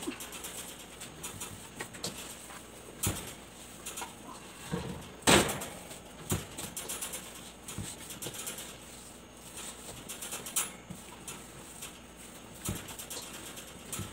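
Hands kneading sticky ube bread dough in a stainless steel bowl: irregular squishing and slapping, with scattered knocks against the bowl and a sharper knock a little after five seconds in.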